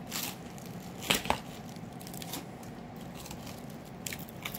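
A few short crunching, tearing sounds of crusty toasted bread pizza being bitten and torn, over faint room noise. The loudest pair comes about a second in.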